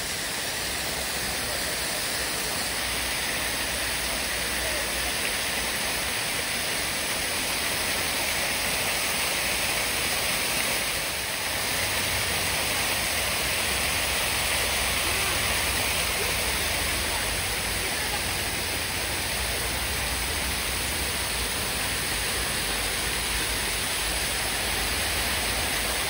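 Man-made waterfalls pouring over rock ledges and splashing into a pool: a steady rush of falling water.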